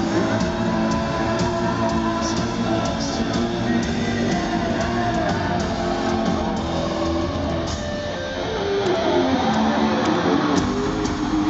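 Live rock concert in an arena, heard from the stands: a band playing loudly with distorted electric guitar over bass and drums. Some gliding, bending notes come in about nine seconds in.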